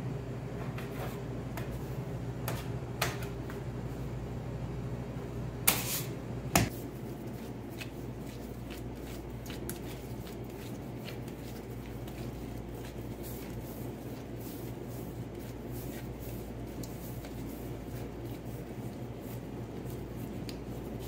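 Pizza dough being cut and hand-balled on a marble bench: scattered soft taps and clicks of handling, with two sharp knocks about six seconds in, over a steady low hum.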